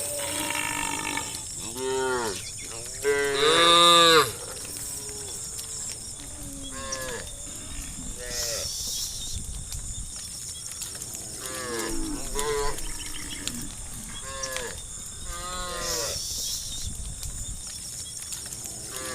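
Cattle mooing again and again, a series of calls that rise and fall in pitch, the loudest and longest about three to four seconds in.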